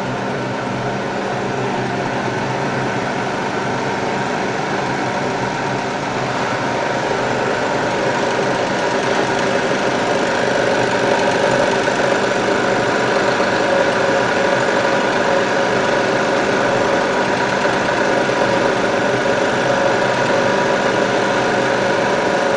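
Namkeen fryer machine running: a steady mechanical hum with several held tones over a hiss, getting slightly louder about eight seconds in.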